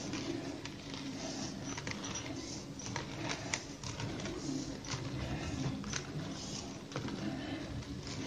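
Plastic basket wire being threaded and pulled through a woven plastic-wire basket rim: faint scattered clicks and rustles of the stiff wire against the weave. A low cooing runs behind it throughout.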